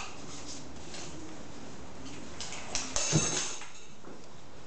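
Seven-week-old golden retriever puppies playing on a tiled floor: a few sudden knocks and scuffs about two and a half to three and a half seconds in, over a steady faint hiss.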